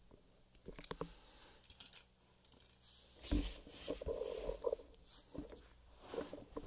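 Handling noise: scattered light clicks and knocks, with a thump about three seconds in followed by rustling, as a handheld phone is moved about and things are shifted out of the way.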